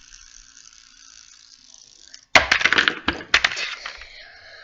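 Fidget spinner being handled, clattering and rattling for about two seconds, starting suddenly a little over two seconds in after a faint steady hiss.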